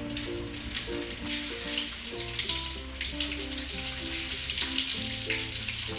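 Banana rolls frying in hot oil with a steady sizzle, over background music with a plain melody.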